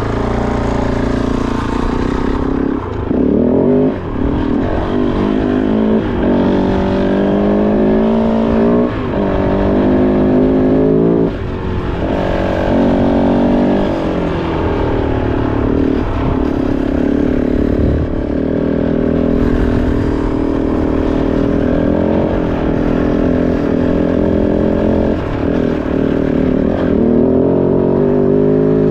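Kove 450 Rally dirt bike's single-cylinder engine being ridden off-road, its pitch climbing and dropping again and again with throttle and gear changes.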